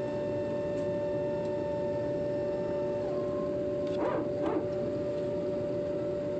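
Steady cabin hum of an airliner on the ground with its jet engines idling, heard from inside the cabin, with several steady whining tones; one tone falls in pitch about three seconds in. Two short blips sound a little after the four-second mark.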